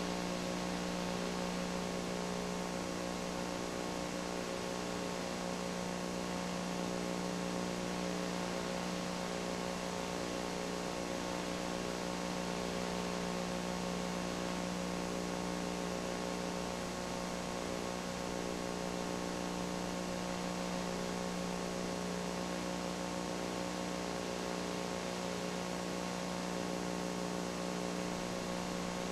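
Steady electrical hum with hiss, unchanging throughout and with no other sound: the empty sound track of a transferred silent home movie.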